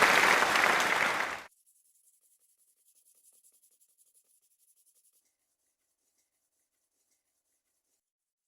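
Kitchen knife scraped across a sharpening stone: a loud, dense gritty scraping that stops abruptly about a second and a half in. A few very faint scratchy strokes follow, then nothing.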